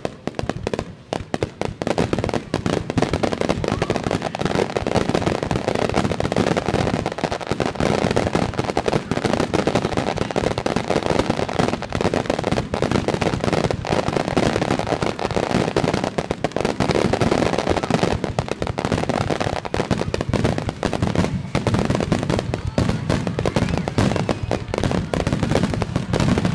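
Fireworks starmine finale: a dense, continuous barrage of shell bursts and crackling, with the bangs packed so close together that they run into one another.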